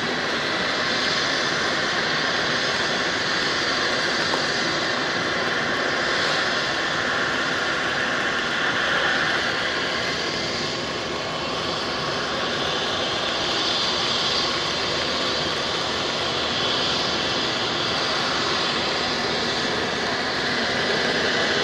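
Eurocopter EC135 P3 helicopter running on the ground with its main rotor turning: a steady turbine whine and rotor noise.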